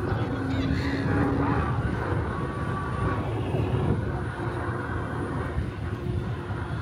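Steady wind rush and rolling hum from a moving e-bike, with a faint steady whine that comes and goes.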